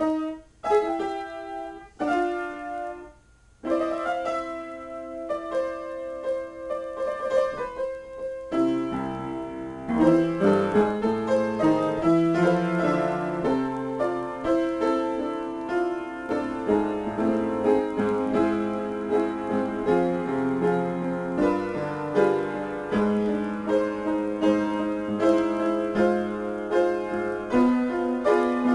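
Solo piano being played in an improvisation. It starts with separate notes and short chords, with a brief pause about three seconds in, then grows fuller and louder with low bass notes from about nine seconds in.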